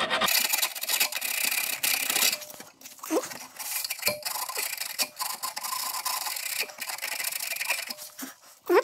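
Sandpaper rubbed by hand on the horn's metal mounting bracket, cleaning it to bare metal for a good ground contact. A run of rough, uneven rasping strokes, heaviest in the first two seconds, ending in a short rising squeak.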